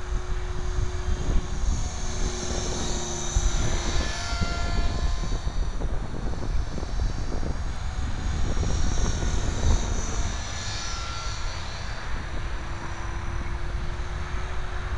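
Align T-Rex 500 electric radio-controlled helicopter in flight: a high motor whine and rotor hum that rise and fall in pitch as it manoeuvres, over wind rumbling on the microphone.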